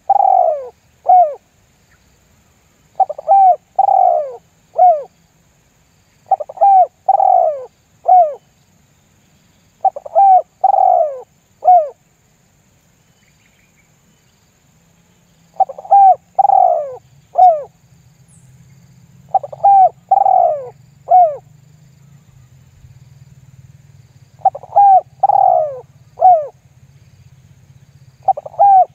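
Spotted dove (tekukur) cooing in the 'lambung guk' lure style. It repeats a three-note phrase, a short coo, a longer coo and a short coo, each falling in pitch, about every three and a half seconds. There is one longer pause about halfway through.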